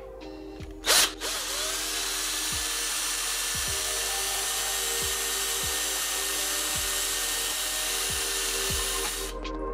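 A Ryobi 18V cordless drill spins briefly, about a second in, boring a pilot hole into a plastic motorcycle fairing piece. After that, background music: a steady wash of noise with a soft beat about once a second.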